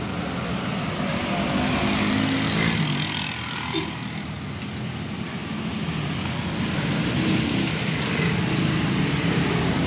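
Motor vehicle engine running steadily, heard from aboard while riding through street traffic, with passing traffic noise. It drops somewhat quieter for a few seconds around the middle, then picks up again.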